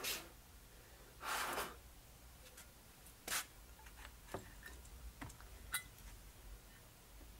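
Short hissing puffs, one at about a second in and a shorter one near the middle, followed by a few light clicks and taps, as a dirty carburetor gasket is cleaned and small carburetor parts are handled on the bench.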